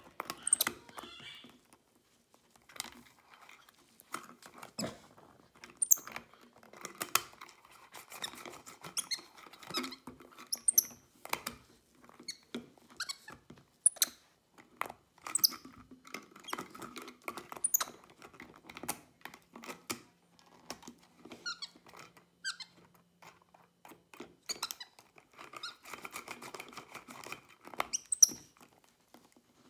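A capuchin monkey twisting a plastic screw cap on and off a plastic bottle and mouthing it. Many irregular clicks, taps and knocks, some sharp and loud.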